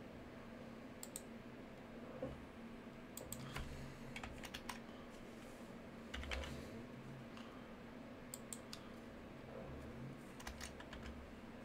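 Faint computer keyboard typing: scattered keystrokes in short bursts every couple of seconds.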